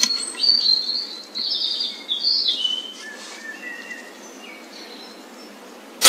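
Woodland birds chirping and singing in short phrases for the first few seconds. At the very end, a single sharp crack of an air rifle shot.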